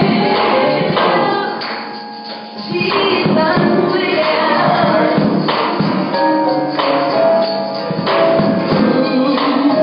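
Live gospel band playing: a woman singing into a microphone over drums, electric guitar and keyboard, with bright percussion hits. The music drops back briefly about two seconds in, then comes back in full.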